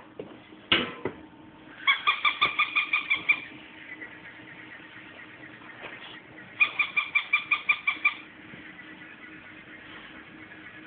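A dog's squeaky plush toy squeaking as it is bitten and squeezed, in two quick runs of about eight squeaks a second, each lasting about a second and a half. A single sharp knock comes just under a second in.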